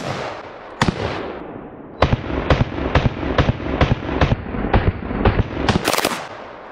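AR-style rifle fired rapidly: a shot at the start, another just under a second later, then a fast string of about fifteen shots, roughly four a second, ending about six seconds in.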